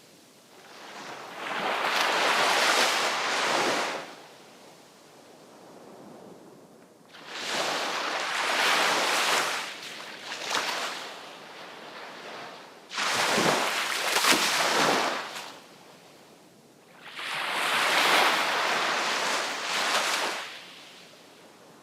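Sea waves breaking and washing up the shore in four separate surges, each swelling for a few seconds and then falling back to a low hiss. The third, about thirteen seconds in, breaks most abruptly.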